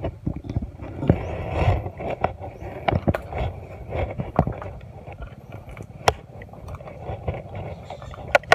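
Irregular knocks, scrapes and rustles of a body-worn camera being jostled as an angler moves through mangrove brush, over a low uneven rumble.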